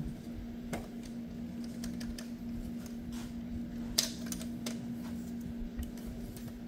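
Scattered light clicks and taps of hands handling plastic wiring connectors on an engine's injector harness, with one sharper click about four seconds in, over a steady low hum.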